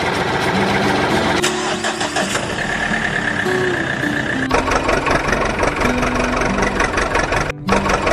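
Vehicle engine sound running steadily, with a simple tune of held notes over it. The sound changes abruptly twice and drops out briefly near the end, as from edits.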